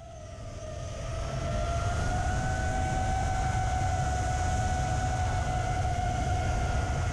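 ImmersionRC Vortex 285 quadcopter's electric motors and propellers running with a steady whine that creeps up slightly in pitch, over a low rumble of prop wash and wind on the onboard camera's microphone. It fades in over the first two seconds.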